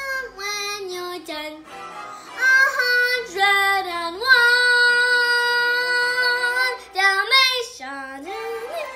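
A young girl singing a show tune over an instrumental backing track, in short phrases with one long held note in the middle.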